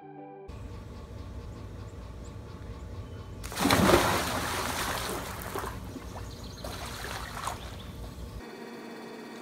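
A person plunges into a swimming pool about three and a half seconds in: one loud splash, then water sloshing and lapping as it settles.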